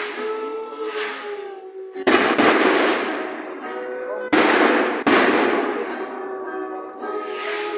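Three loud bangs, about two, four and five seconds in, each dying away over a second or so, over music with held, slightly wavering notes.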